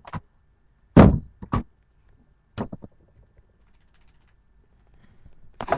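Several thumps and knocks, the loudest about a second in, followed by a second one soon after and two lighter knocks a little later.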